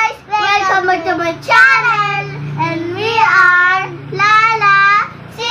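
Young girls singing a short tune together, with held notes that slide up and down, broken by brief pauses.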